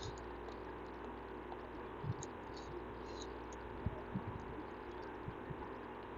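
Faint steady hum of microphone and room noise, with a few soft taps and light scratches of a stylus writing on a digital tablet.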